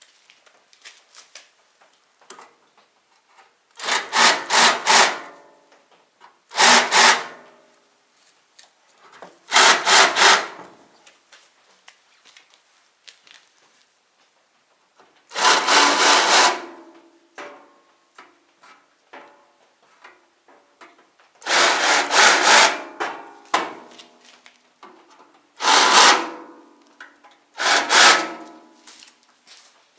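A tool cutting or abrading a workpiece in short, loud bursts, about nine times, some as quick runs of three or four strokes, with pauses between.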